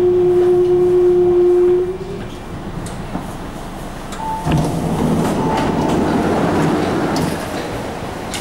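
MTR Ma On Shan Line C-Train electric multiple unit pulling into a station: its motors whine with a steady tone that cuts off about two seconds in as the train comes to a stop. About halfway through a sudden, louder rush of noise sets in, with short electronic beeps.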